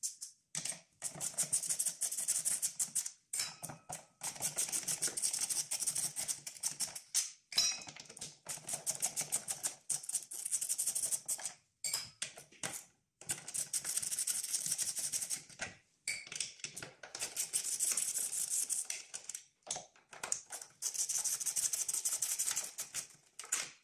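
Hand ratchet clicking in quick runs as bolts are wound out, several stretches of rapid clicking a second or two long with short pauses between them.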